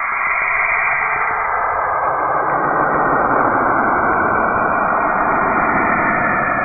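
Steady rushing hiss with faint held tones underneath, swelling over the first couple of seconds and then holding. It is the 'sound of Saturn': radio emissions from the planet rendered as audio.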